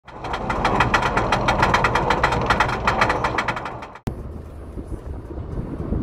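A loud, even rattle of sharp strokes, about eight a second, cuts off suddenly about four seconds in; after it comes the low, steady rumble of a car driving, heard from inside the car.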